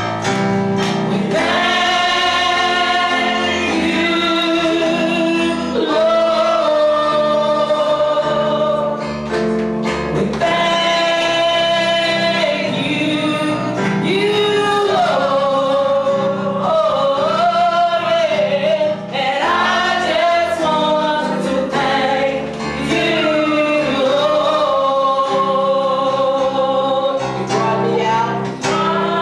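Gospel music: a choir of men's and women's voices singing long held notes over steady low accompaniment.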